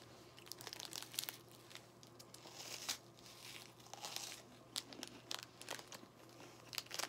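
Plastic snack wrapper crinkling softly in the hands in short, irregular bursts, with faint crunching from the puffed corn snack stick being eaten.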